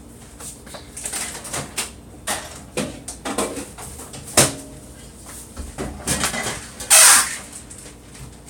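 Irregular clicks, knocks and short scrapes of food being prepared by hand, with utensils and containers handled. The loudest sound is a brief rustle or scrape about seven seconds in.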